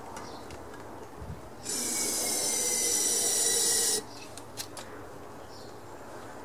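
Aerosol can of carburetor cleaner spraying in one steady hiss of about two seconds, priming the engine's cylinder through the open spark plug hole. The hiss starts about a second and a half in and cuts off suddenly; a few light metallic clicks follow.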